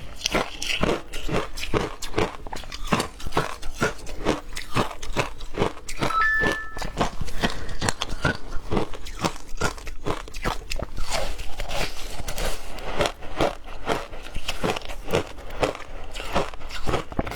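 Ice being bitten and chewed close to the microphone, a continuous run of sharp crunches about three to four a second. There is a brief high tone about six seconds in.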